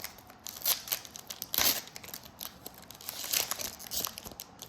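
Foil trading-card pack wrapper being torn open and crinkled by hand, a run of irregular crackling rustles with a few louder tears.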